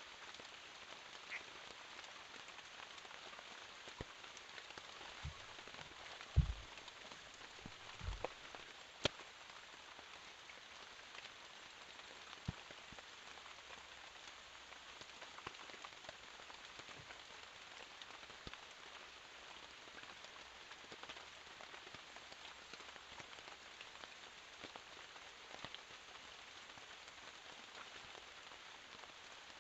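Steady rain falling: an even hiss with scattered drops ticking, and a few dull low thumps about a quarter of the way in.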